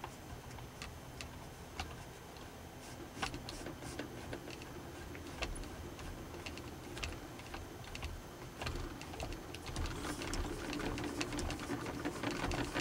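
Homemade aluminium suppressor being screwed by hand onto a rifle's threaded barrel: scattered light metallic clicks and scrapes, coming thicker and faster near the end as it is turned tight.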